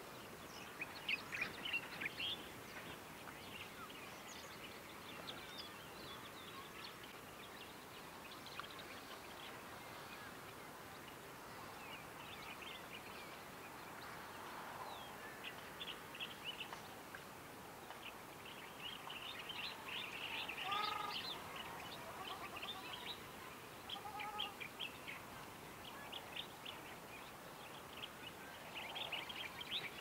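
Riverside birdsong, with many small birds chirping throughout. Two-thirds of the way in and again a few seconds later come short nasal honking calls of ruddy shelducks.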